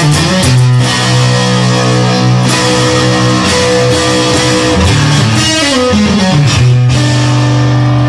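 Instrumental rock music: electric guitar playing long held notes over bass, with no vocals.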